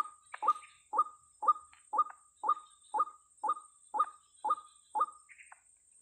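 White-breasted waterhen (ruak-ruak) calling: a short, sharp note repeated evenly about twice a second, stopping about five seconds in.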